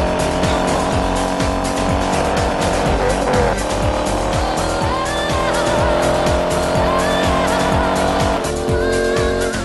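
Car engines running hard at high revs, the engine pitch climbing slowly twice before dropping near the end, with tyre squeal. A dance track with a steady kick-drum beat plays over it.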